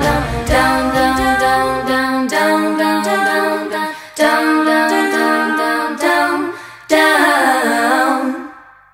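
A small group of female voices singing a cappella in close harmony. A low part drops out a couple of seconds in, and the song ends on a held chord that fades away near the end.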